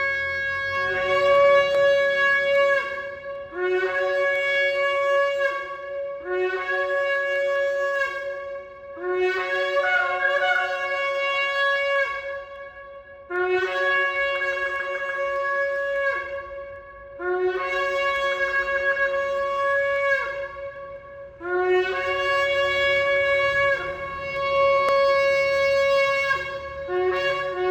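Shofar blown in a series of long sustained blasts, about seven in a row separated by short breaths. Each blast starts with a short upward scoop in pitch, holds a steady note, and drops away at the end.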